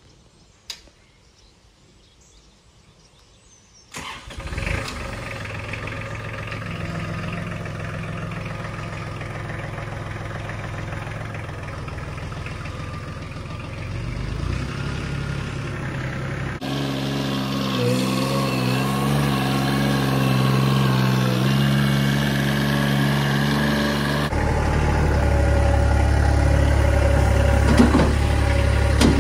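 Kubota L3130 tractor's diesel engine running under load, starting up sharply about four seconds in after a quiet opening and growing louder as the front loader lifts and carries a heavy bucket of debris. Near the end there is a brief clatter as the bucket tips the load into a metal dumpster.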